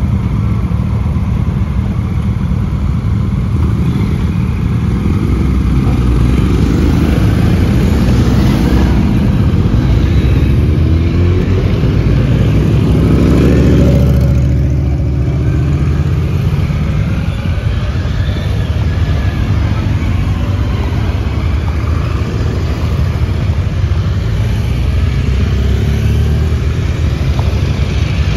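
Many motorcycle engines running as a column of motorcycles pulls away one after another. One bike passes close about halfway through, its engine note rising and then falling away as it goes by.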